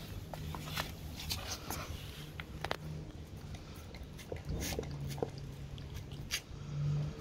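A dog nosing and biting at raw turkey wings in a tray on a tile floor: irregular sharp clicks and taps, over a steady low hum.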